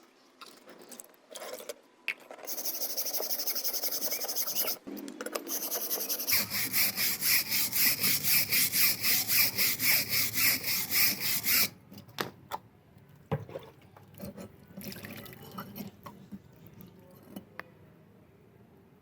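Back-and-forth scraping strokes on a rusty steel file, as rust is rubbed off by hand. A steadier scrape comes first, then the strongest part, about three strokes a second, in the middle, then scattered lighter scrapes and clicks.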